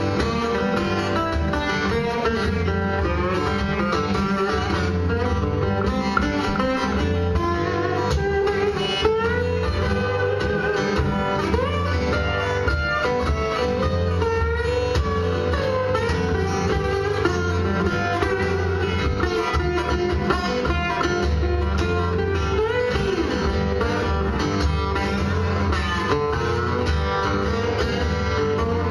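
Two acoustic guitars playing live together in an instrumental stretch, steady strummed and picked parts with lead notes that bend in pitch.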